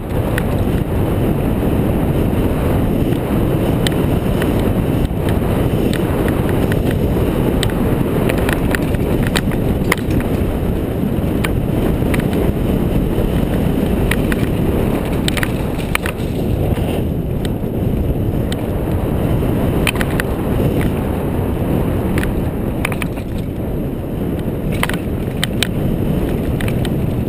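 Mountain bike descending a dirt and loose-rock singletrack at speed: steady wind rush on the microphone and tyre rumble, with frequent sharp clicks and rattles from the bike over the rough ground.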